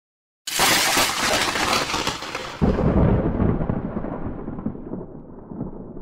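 Thunder-like intro sound effect: a sudden crackling crack about half a second in, then a heavier, deeper boom about two seconds later that rolls on as a rumble, its treble gradually dying away.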